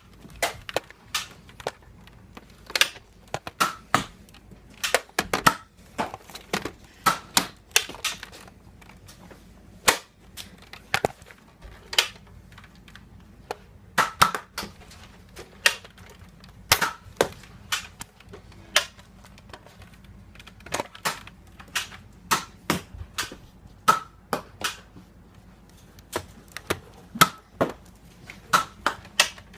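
Nerf blasters firing foam darts: sharp clicks and pops at irregular intervals, about one a second, sometimes two or three in quick succession.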